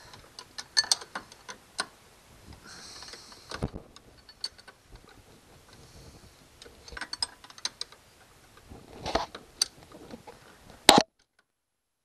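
Steel 9/16-inch open-end wrench working a mounting bolt loose: irregular metallic clicks, taps and a short scrape as the wrench is fitted and turned. The loudest click comes near the end, then the sound cuts off suddenly.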